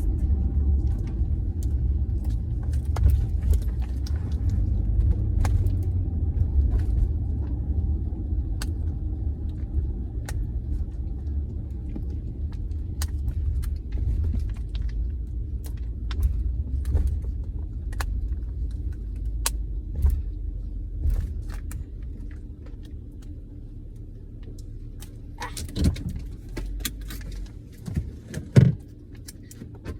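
Low road rumble of a moving car heard from inside the cabin, easing off in the last third, with scattered small clicks and crinkles of a toy's packaging being handled. A few louder knocks come near the end.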